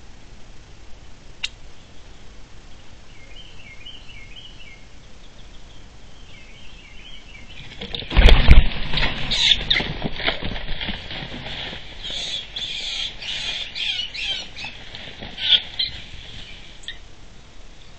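A red fox pounces on a squirrel in a brush pile: a sudden crash about eight seconds in, then a run of sharp, high-pitched squeals and scuffling from the caught squirrel for about eight seconds, loudest at the start. A few faint bird chirps come before the pounce.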